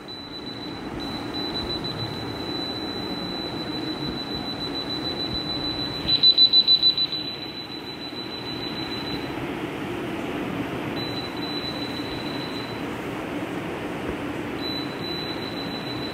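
An electronic root canal device sounds a steady high tone, with a run of about seven rapid, loud beeps about six seconds in, and its tone drops out twice later. Under it runs a steady low hum.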